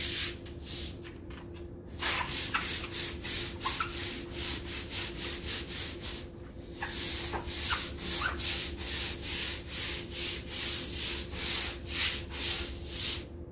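A long-handled stiff-bristle scrub brush scrubbing a wet, soapy kennel run in rhythmic back-and-forth strokes, about two a second, with a short pause midway.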